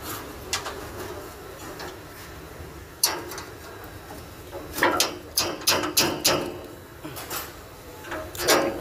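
Metal tool clinks and knocks against a generator radiator and its hose clamp as a spanner is worked: one sharp click about 3 seconds in, a quick run of six or seven clinks around 5 to 6 seconds, and another near the end.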